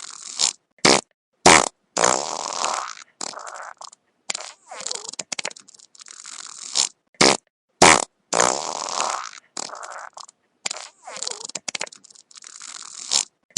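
Wet fart sound effect played over and over: a rapid series of separate blasts with short gaps, some brief and loud, others longer and drawn out.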